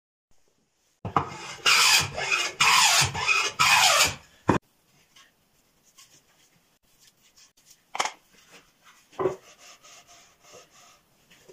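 About four long scraping strokes of a hand tool across a wooden board, each a second or less, ending in a sharp knock. Later come two short wooden knocks as boards are set down on the workbench.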